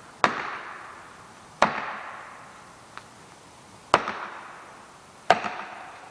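Felling wedges being driven into a tree's cut with four heavy strikes at an uneven pace, each ringing briefly and fading away.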